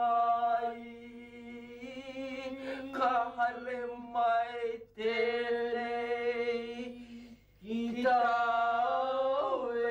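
A solo voice singing slow, long-held notes with no accompaniment, breaking off briefly about five seconds in and again about two and a half seconds later.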